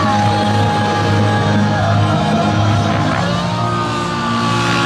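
Rock music played over a loudspeaker system, with the whine of a nitro model helicopter's engine and rotors rising and falling in pitch beneath it.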